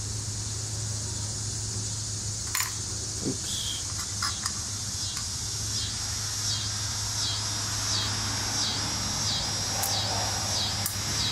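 Light clicks and taps of small metal carburetor parts being handled while the main jet is fitted, over a steady low hum. From about halfway in, a faint high chirp repeats roughly every 0.7 seconds.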